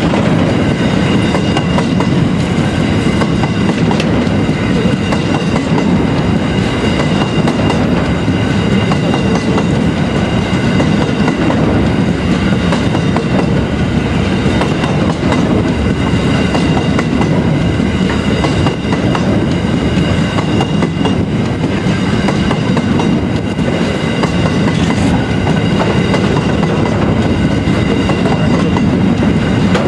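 Grain hopper wagons of a long freight train rolling past close by: a steady, loud rumble of steel wheels on the rails, with a thin, steady high-pitched squeal over it.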